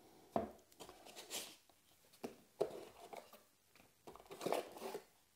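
Cardboard box packaging being handled: an insert lifted and shifted inside a cardboard box, giving scattered rustles, scrapes and light knocks.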